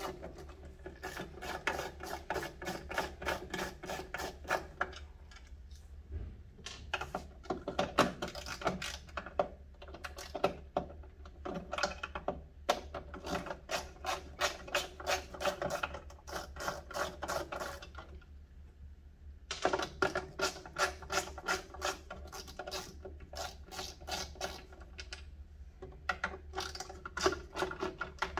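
Rapid, even clicking of a screwdriver fitted with a small Torx bit, backing screws out of an ice maker's filter housing cover. The clicking comes in several runs, with short pauses around a quarter of the way in and again about two thirds of the way in.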